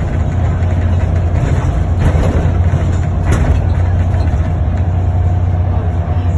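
Bus engine running, heard from inside the passenger cabin: a steady low drone with a faint steady whine above it, and a single sharp click about three seconds in.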